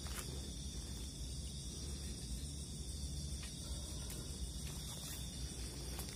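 Night insects, crickets, trilling steadily in a continuous chorus, over a low rumble.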